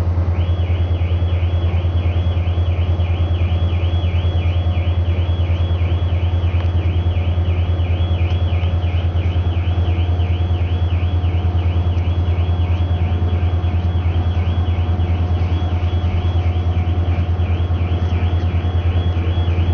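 Diesel engine idling at a railway station with a steady, heavy low drone. About half a second in, a high electronic warbling alarm tone starts and keeps going, swinging up and down about three times a second.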